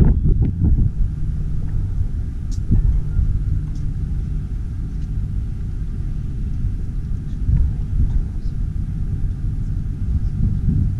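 Steady low rumble of wind buffeting the camera microphone on a ship's open deck, swelling in gusts about a second in and again near the end.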